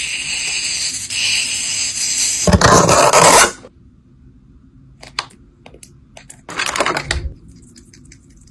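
Handling noise from squishy toys and their plastic packaging: a steady high rustle, then a loud crinkling crush about two and a half seconds in, a few small clicks, and a second shorter crinkle near seven seconds.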